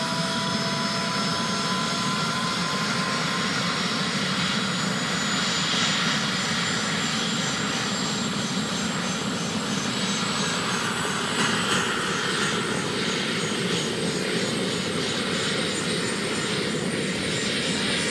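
Model Eurocopter Lama helicopter's small jet turbine engine running with a high whine that climbs slowly in pitch as it spools up, over the steady rush of the spinning rotors.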